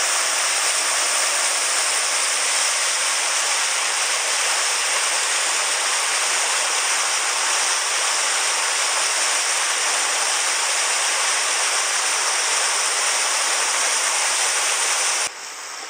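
Rushing water: a loud, steady, bright hiss with no distinct rhythm, which stops abruptly near the end.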